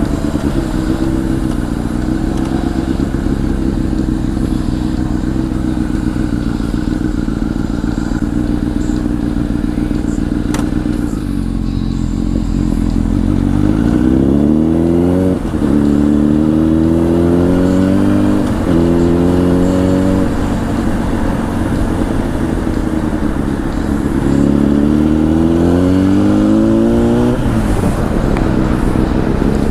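Honda CBR1000's inline-four through a Two Brothers aftermarket exhaust, first running at a steady cruise. From about halfway it accelerates hard through the gears: the engine note climbs, breaks off with a quick upshift, and climbs again, three rising pulls in all, the last near the end.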